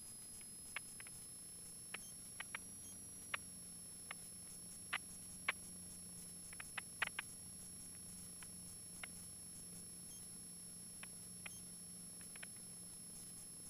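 Faint, steady background of the cockpit audio feed with the propeller engine idling: a low hum and a thin high whine, broken by scattered sharp clicks.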